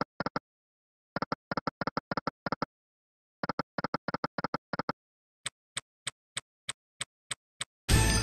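Online slot game sound effects from EGT's Olympus Glory: quick runs of clicks as the reels stop one after another, spin after spin. These are followed by an even series of sharper ticks, about three a second, and then a loud win jingle that begins near the end as a winning line lands.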